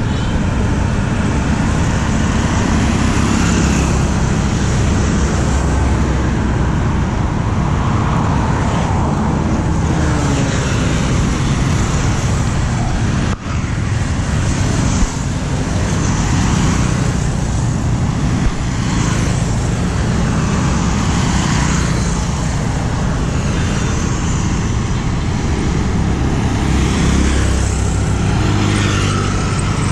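Road traffic: motorbikes and other vehicles passing one after another over a steady low rumble, with a brief dip about thirteen seconds in.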